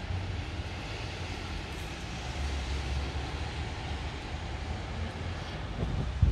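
Steady low rumble with a hiss over it, distant engine noise from outdoors. A loud low thump near the end.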